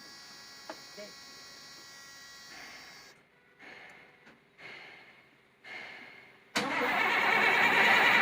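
Electric fuel priming pump of a CAT 950H wheel loader whirring steadily, with two clicks about a second in. Then come a few short surges about a second apart, and about six and a half seconds in the engine starts and runs loudly.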